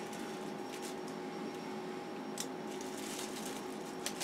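Quiet workshop room tone with a steady hum, and two faint clicks as small items from an opened parcel are handled.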